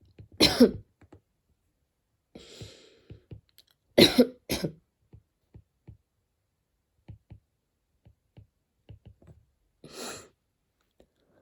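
A person coughing repeatedly: one hard cough about half a second in, two quick coughs around four seconds, and another weaker cough near the end, with breathy sounds between. It is a persistent, nagging cough.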